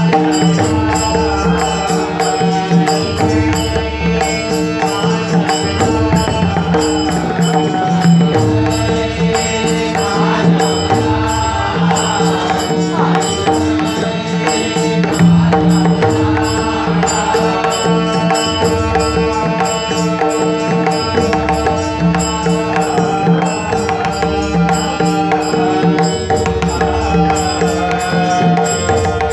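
Marathi devotional abhang music: pakhawaj drumming in a steady rhythm under a sustained held drone, with a melody line rising and falling over it.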